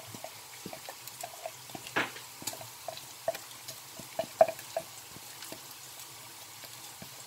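Wet ground fresh corn sliding and plopping out of a glass bowl into a plastic mixing bowl, with a silicone spatula scraping the glass. Soft irregular plops and taps, a few sharper clicks among them.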